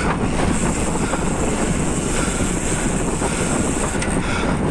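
Steady, loud wind rush buffeting the microphone of a camera riding along on a moving bicycle, with the low rumble of riding underneath.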